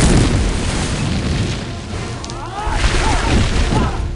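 Film battle sound effects: deep rumbling booms of a fire blast and surging earth, with movie score underneath.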